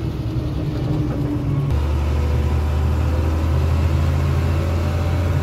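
Vehicle engine and road drone heard from inside the cab while driving, a steady low hum that grows noticeably louder a little under two seconds in.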